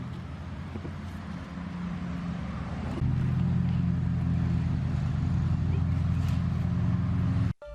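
An engine running steadily with a low drone, louder from about three seconds in, then cutting off abruptly near the end.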